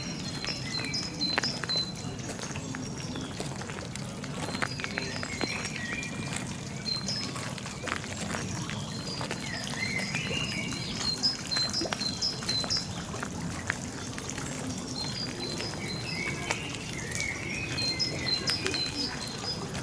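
Small birds singing, with repeated short high chirps and gliding whistled phrases, over a steady sound of running, trickling water.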